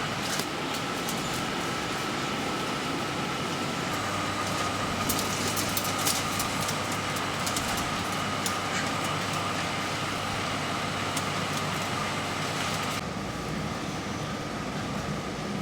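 Steady mechanical hum and hiss with a constant high whine, overlaid by scattered sharp clicks and rattles that cluster about five to seven seconds in; the background changes abruptly near the end.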